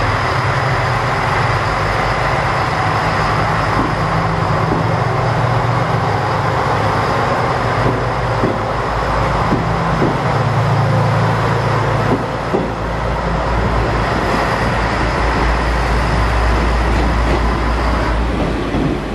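JR Hachinohe Line diesel railcar pulling out of the platform: its diesel engine drones steadily under load, with a few wheel clicks over the rail joints in the middle as the cars pass, and the low rumble swells near the end.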